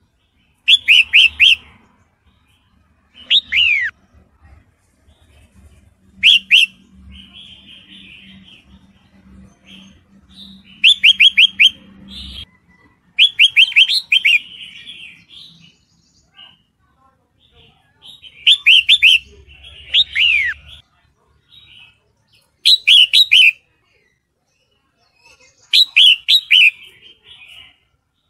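Red-whiskered bulbul calling in short, quick bursts of chattering notes with downward-sweeping whistles, about eight phrases with pauses between them. It is presented as a female in breeding condition calling for a male.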